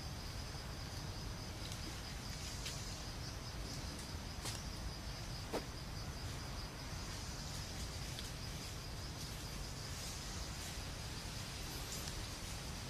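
Insects trilling steadily at a high pitch, swelling a little now and then, over a low rumble, with a few faint clicks.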